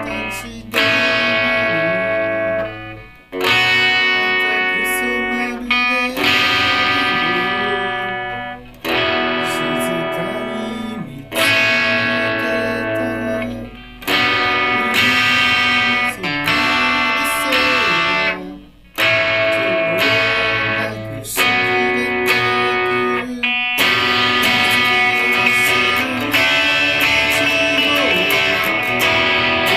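Guitar chords, each struck and left to ring out for two to three seconds before the next, with a singing voice over them. About six seconds before the end the guitar changes to steady, continuous strumming.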